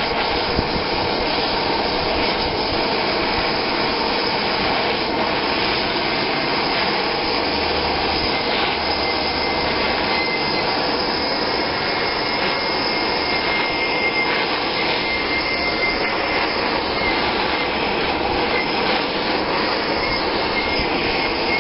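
Hand-held gas torch burning steadily, its flame played over the side of a plastic barrel to heat out scratches.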